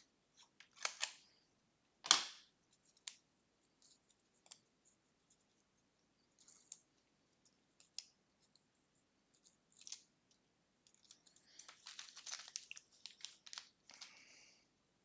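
Small plastic LEGO pieces clicking and clattering as they are handled and sorted. There is a louder knock about two seconds in and a quick run of rattling clicks near the end.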